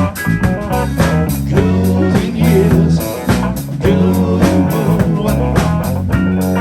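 Guitar-driven blues-rock music with bass and drums.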